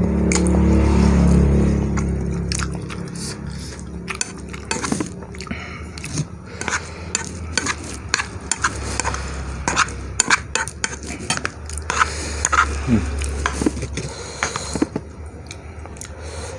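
Cutlery clinking and scraping against a bowl of soupy instant noodles while eating: many short, sharp clicks. A low rumble, loudest in the first couple of seconds, runs underneath.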